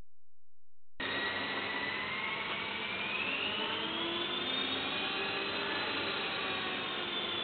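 Small electric radio-controlled helicopter's motor and rotor whirring as it lifts off and flies, starting about a second in. The motor's whine rises in pitch over the next few seconds, then holds steady.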